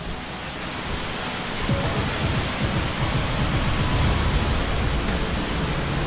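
Water falling and spraying down a narrow cave canyon: a steady rushing hiss. Low rumbling joins it from about two seconds in.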